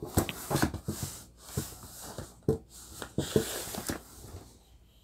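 Rummaging by hand through a cardboard box of figurines and collectibles: irregular light knocks and rustling as items are moved about.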